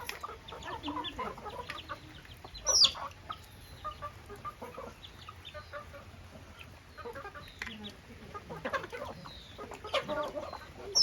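A flock of desi (native country) chickens clucking, with a loud high squawk that falls in pitch about three seconds in and a cluster of louder calls near the end.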